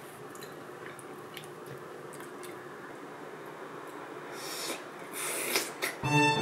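Eating from a bowl with a metal spoon and chopsticks: a few light utensil clicks, then breathy slurping and chewing noises about four and five seconds in. Violin music starts near the end.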